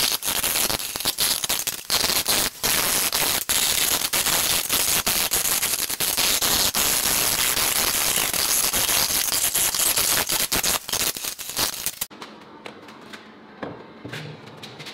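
Hand file rasping along the cut edge of a steel channel in quick, uneven strokes, deburring the metal; it stops abruptly about twelve seconds in, followed by a couple of light knocks.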